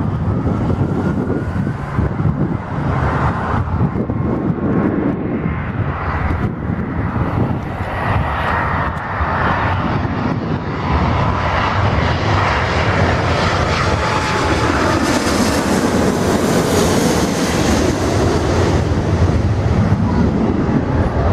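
Boeing 777-200ER's jet engines on landing approach: a steady rumble with faint whining fan tones, growing fuller and brighter as the airliner passes close, loudest about three-quarters of the way through.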